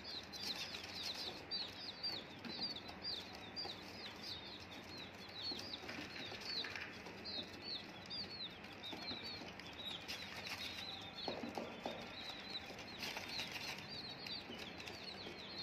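Chicks peeping: a rapid run of short, arched, high cheeps, two or three a second, thinning out midway and picking up again later, with a few faint knocks.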